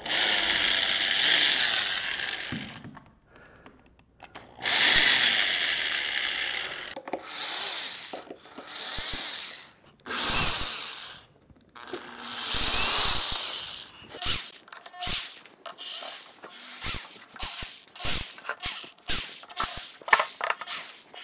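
An old corded electric drill backing screws out of a wooden mold case. There are two long runs of the drill early, then shorter runs, then many quick bursts on the trigger, one or two a second, near the end.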